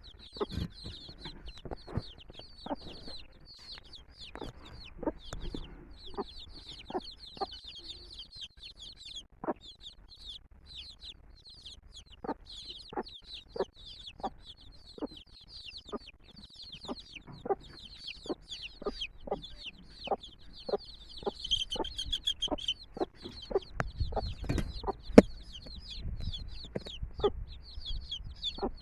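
Domestic chicks peeping continuously in a dense, high chorus while the mother hen clucks in short, low, repeated notes. A single sharp knock stands out near the end.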